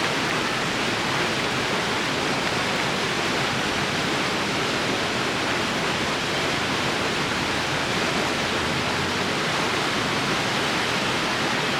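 Steady rushing of whitewater pouring down a mountain river cascade, an even, unbroken noise.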